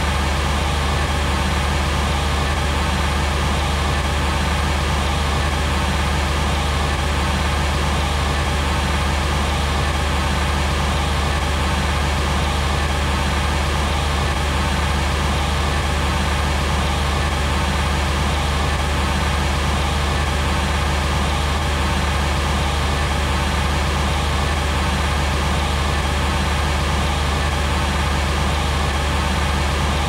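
Car engine running steadily at a constant speed, a low, even rumble with no revving.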